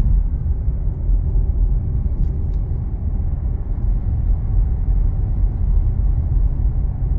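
Steady low rumble of a car driving along the road, with tyre and engine noise heard from inside the moving car.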